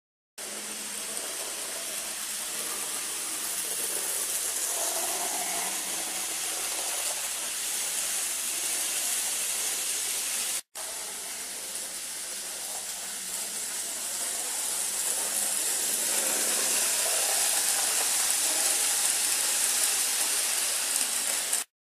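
N gauge model train running on the layout's track, heard as a steady hiss that grows slightly louder in the second half. The sound cuts out for an instant about halfway through.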